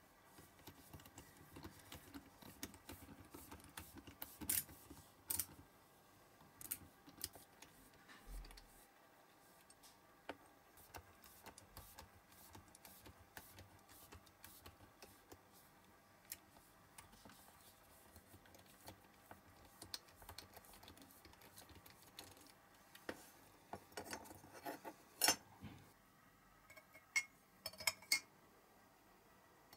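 Faint, irregular clicking and scraping of a small drill bit working against the die-cast metal base of a toy car, with no motor tone. Near the end, a few sharper clinks of metal forceps against a glass jar.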